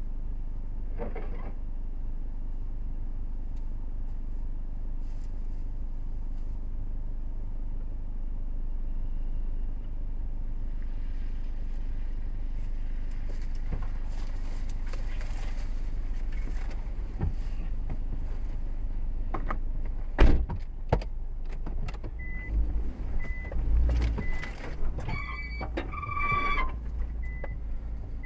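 Car engine idling steadily, heard from inside the cabin of a Nissan Expert wagon. About twenty seconds in comes a sharp knock, then the car moves off over rough ground with uneven knocks and rattles, while a short high beep repeats about once a second.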